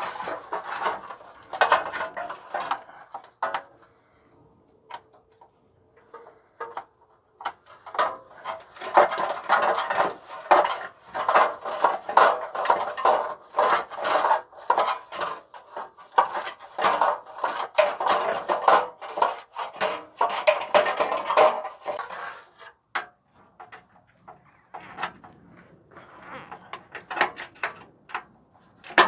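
Socket ratchet clicking in quick runs as an exhaust heat-shield bolt is backed out, with metal tools clinking; the clicking pauses briefly a few seconds in and again near the end.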